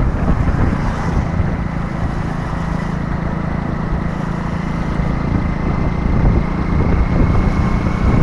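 Wind buffeting the microphone of a vehicle on the move, over the steady drone of its engine and road noise.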